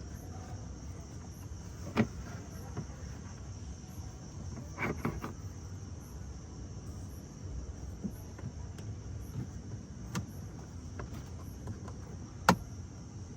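Insects chirping steadily in the background. A few sharp clicks and knocks stand out: one about two seconds in, a quick cluster of several around five seconds, and the loudest near the end.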